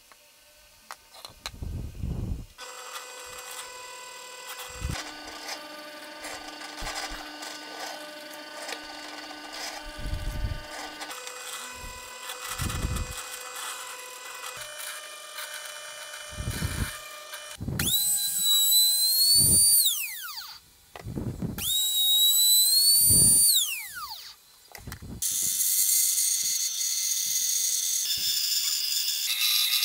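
Bench drill press running and boring holes in plywood, with knocks of the wood being handled. Twice a motor whines up to speed, holds and winds down. Near the end a band saw cuts through plywood.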